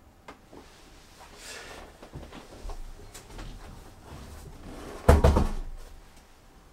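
Objects being handled: soft rustling and a few light knocks, then a loud clattering knock with a low thud about five seconds in.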